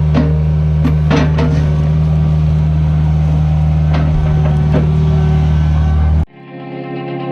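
Engine of heavy equipment running steadily, with scattered clanks and knocks. About six seconds in it cuts off abruptly and electric guitar music begins.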